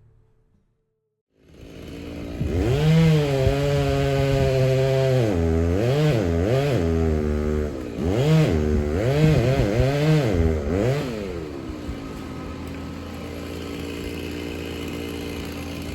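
Two-stroke chainsaw coming in about a second and a half in, running at high revs, with its pitch dipping and recovering several times as the engine loads in the cut. It drops to a lower, steadier run near the end, then revs up again.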